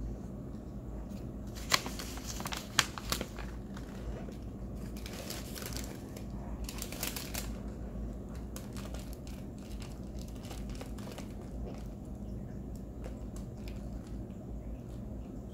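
Crinkling and crackling with a few sharp clicks about two to three seconds in, then two short stretches of crackle a few seconds later.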